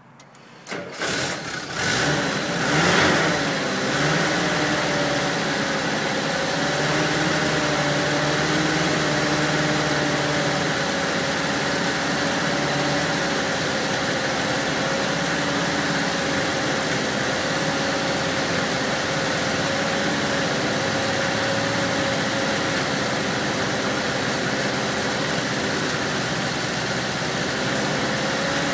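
1978 Volkswagen Westfalia's air-cooled flat-four engine starting: it catches about a second in, is revved briefly with the throttle, then settles into a steady idle that sounds rough.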